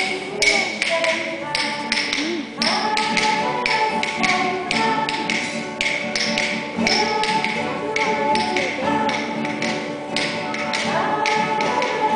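Music: a melody carried over a steady beat of sharp taps, about two to three a second.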